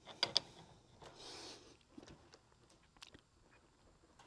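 Wrenches working the threaded copper line-set fitting of a mini-split indoor head: two sharp metal clicks at the start, a short rasp about a second in, then a few faint ticks as the nut is tightened.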